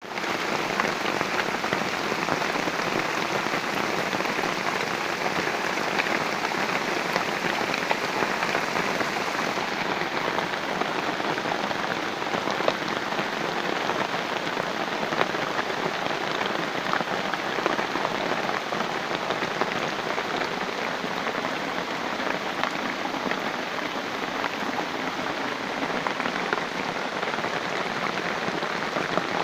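Heavy rain falling steadily in a rubber plantation: a dense, even hiss of rain on leaves and ground, dotted with small drop ticks.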